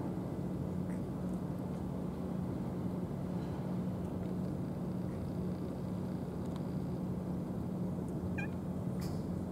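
A steady low mechanical hum at an even level, with a brief faint high call about eight seconds in.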